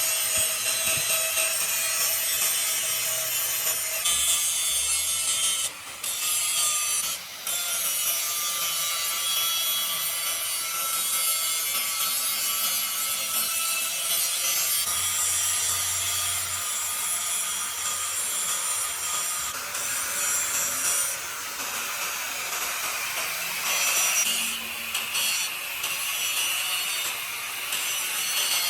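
Steady abrasive rasping of a tool working on metal, with two short breaks about six and seven seconds in.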